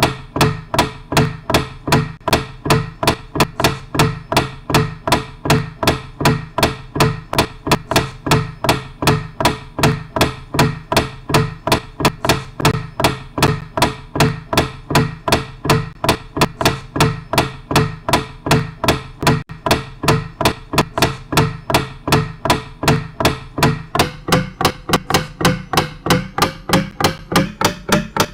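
Steady, evenly repeating percussive knocks, about three a second, each with a short pitched ring; the pitch of the ring shifts near the end.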